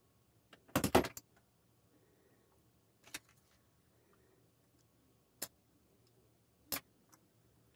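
Small sharp clicks and taps from hands and a screwdriver handling the slow cooker's display panel and bezel: a few quick clicks about a second in, then three single clicks a second or two apart.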